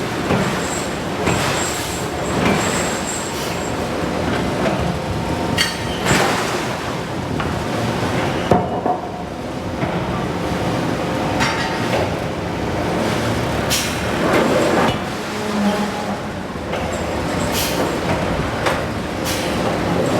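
Forge shop din: steady machinery noise with irregular metallic clanks and knocks of steel being handled and struck at the hammer, and some high squealing tones.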